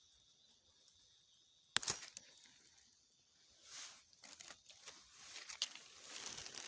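Dry vegetation rustling and crackling, with a sharp snap a little under two seconds in and more scattered crackles toward the end; a faint steady insect drone sits underneath at first.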